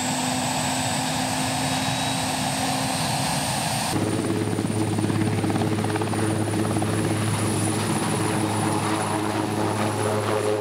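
Puma-type twin-turbine military helicopter running, with a steady turbine whine. About four seconds in the sound changes abruptly to a heavier, rhythmic beat of the main rotor as the helicopter lifts off.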